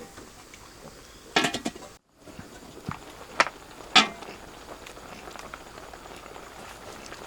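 A cluster of quick clattering knocks, then three separate sharp knocks about half a second apart, over a faint steady background hiss.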